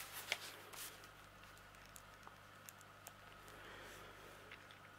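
Near silence: room tone with a faint steady low hum and a few faint ticks in the first second.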